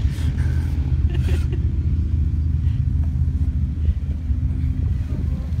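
An engine running steadily at an even speed, a low rumble that holds the same pitch throughout.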